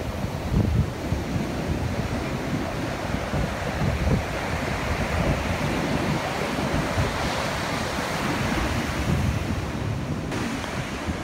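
Heavy storm surf breaking and washing ashore in a steady roar, with gusts of wind buffeting the microphone.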